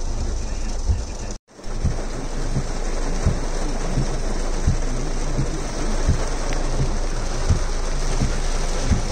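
Heavy rain falling on a car's roof and windows, heard from inside the car: a dense steady patter with irregular low thuds of large drops. The sound cuts out for a moment about a second and a half in.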